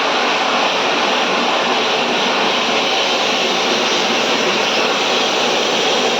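Steady, loud rushing hiss of a water spray washing an air conditioner, unbroken throughout.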